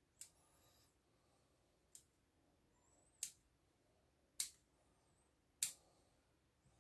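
Bonsai pruning scissors snipping the thin twigs of an elm bonsai: five sharp snips, spaced a little over a second apart, the second one fainter.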